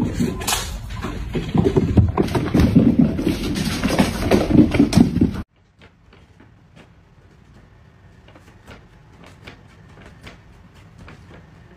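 Loud background music that cuts off abruptly about five and a half seconds in. It is followed by faint crinkling and light ticks of a paper shopping bag as a cat mouths and tugs at its handle.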